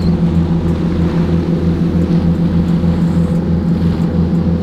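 Boat engine running steadily: a low hum with a throb about four times a second.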